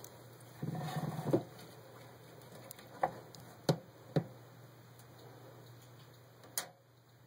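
A hand rustling through the moss substrate of a terrarium to scoop up a toad, followed by a few sharp, separate clicks.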